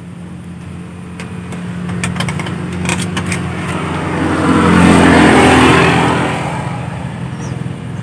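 A motor vehicle passing by: its engine grows louder to a peak about five seconds in, then fades away.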